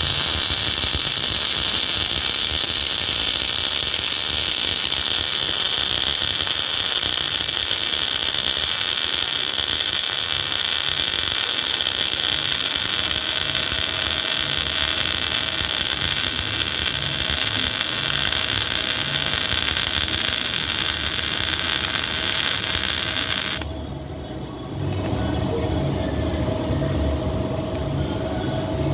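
MIG welding arc from a Lincoln Electric Power Wave S350 with a Power Feed 84 wire feeder, a steady hiss as a bead is run along a steel joint for about twenty-three seconds. The arc cuts off suddenly near the end, and about a second later a steady mechanical running sound with a faint hum takes over.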